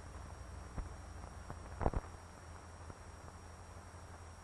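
Background noise of an old film soundtrack: steady hiss and low hum, with a few clicks and one louder crackle about two seconds in.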